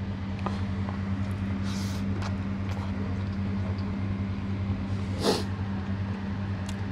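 A steady low electrical-sounding hum, with faint ticks and two brief rustling scrapes as rice and curry are mixed by hand on a plate.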